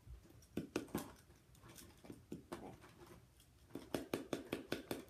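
Rubber ball of a paddleball toy bouncing off its wooden paddle, tapping it: scattered taps at first, then a quick, even run of about five taps a second near the end.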